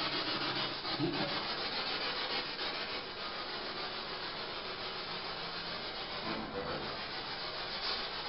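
Steady hiss of a recording's background noise, with a faint low sound about a second in and again near the six-and-a-half-second mark.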